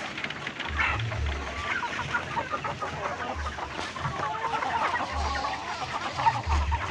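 A flock of free-range village chickens (ayam kampung) clucking and chattering, many short overlapping calls, with dull low thumps mixed in.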